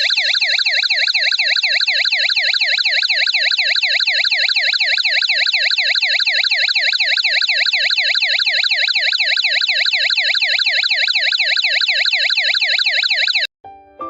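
Electronic ambulance-style siren from a chip-on-board sound IC: a fast warbling yelp sweeping up and down about four times a second at a steady level. It cuts off near the end, and a short electric-piano tune starts.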